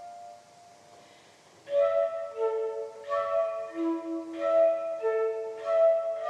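Solo concert flute playing. A held note fades into a short pause, then loud, sharply attacked notes with breathy chiffs come in under two seconds in, with a fresh accented phrase about every second and a half.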